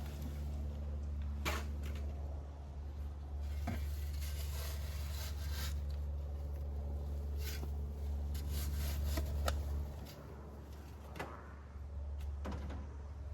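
Scattered rustles, taps and knocks of hands setting a plant into soil and handling its pot, over a steady low rumble that drops away about ten seconds in.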